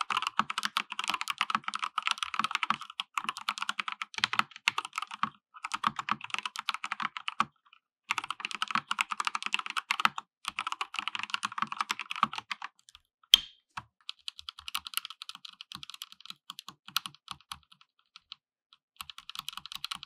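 Typing sound test on an Akko Sailor Moon Crystal 5108S full-size mechanical keyboard with Akko CS linear switches, built-in plate foam and PBT keycaps: fast runs of loud keystrokes broken by short pauses. A single sharp knock stands out about two-thirds of the way through, and the typing after it is a little lighter.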